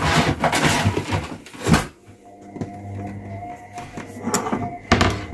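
Dry, torn tortilla (lavash) scraps being swept and gathered by hand on a stone countertop, rustling and crackling with a sharper knock about two seconds in. It quietens to a faint steady hum, then more rustling and handling comes near the end.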